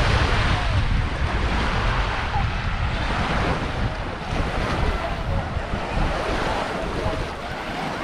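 Small waves washing onto a sandy shore, with wind buffeting the microphone as a low rumble. Faint voices of beachgoers can be heard in the background.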